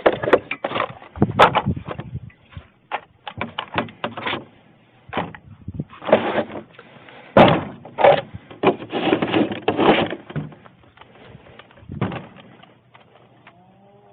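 Irregular knocks and clunks mixed with short scraping and rustling bursts, some sharp and some lasting about a second, loudest around six to ten seconds in.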